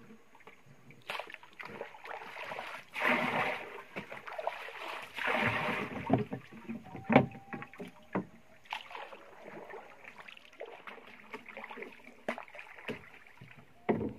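Someone working a small wooden boat with a wooden paddle: several sharp wooden knocks of paddle against hull, with two longer swishing strokes about three and five seconds in.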